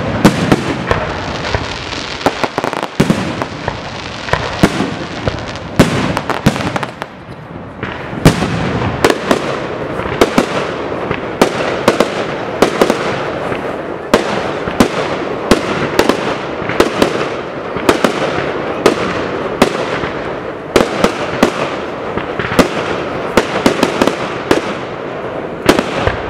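Aerial firework shells fired from mortars bursting in rapid succession: sharp bangs, often more than one a second, over a continuous crackle, with a short lull about seven seconds in.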